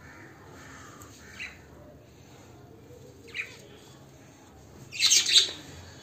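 Budgerigars calling: two short, quiet chirps, then a loud, harsh burst of squawking chatter about five seconds in.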